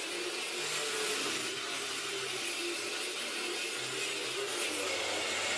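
Angle grinder running steadily as it cuts a groove into a wall, with a vacuum cleaner drawing the dust off through a shroud made from a PVC pipe cap.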